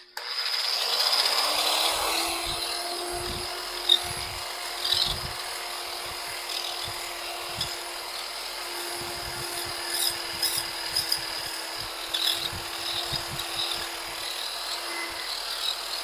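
Handheld electric polisher with a diamond polishing pad grinding a concrete countertop. The motor whine rises over the first second or two as it spins up, then holds steady under a continuous gritty scraping, with a few sharper scrapes and knocks as the pad moves over the surface.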